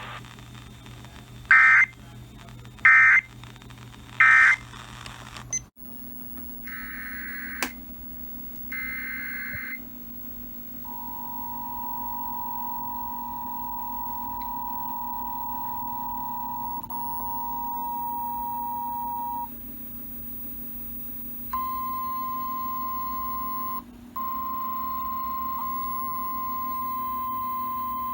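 Emergency Alert System audio: three short screeching digital data bursts, the end-of-message code, about a second and a half apart. After a cut come two longer data bursts of a new alert header, then the two-tone EAS attention signal held steady for about nine seconds. A single steady alert tone follows, broken twice by brief dropouts.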